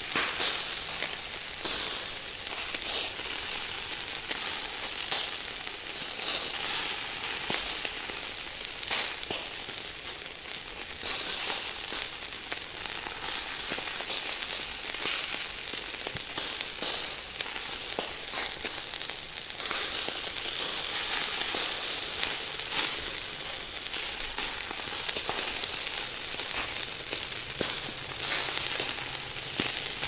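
Food frying: a steady, high sizzle full of quick crackles and pops, swelling louder now and then.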